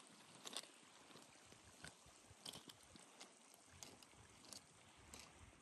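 Faint footsteps on loose scree, with trekking-pole tips clicking sharply on the stones a handful of times at irregular intervals over a soft steady hiss.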